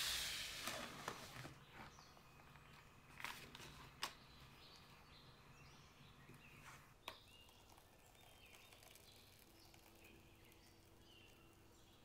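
Quiet handling noise: a cardboard cake board carrying a metal cake ring is slid and set down on a stone countertop, with a brief scrape at the start and a few light knocks in the first seven seconds, then near silence.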